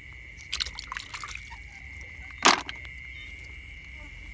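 A steady high-pitched drone of night insects, with soft rustling about half a second in and one short, loud splash about two and a half seconds in.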